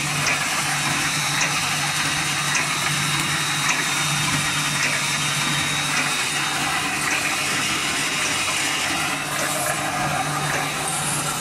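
Roll mesh welding machine running: a steady machinery hum and hiss with faint regular knocks about once a second.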